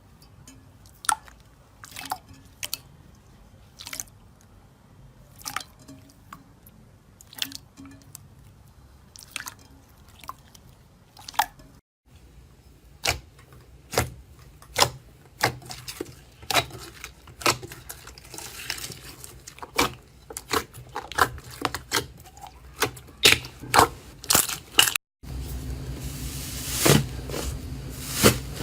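Slime being pressed and squeezed by hand, with wet squishes and many sharp crackling pops, the pops coming faster in the later part.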